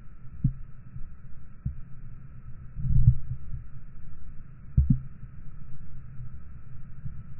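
Muffled sound of river water picked up by a camera held underwater in its waterproof housing: a steady low rumble and hiss with a few dull thumps, the loudest about three seconds in and a double thump near five seconds.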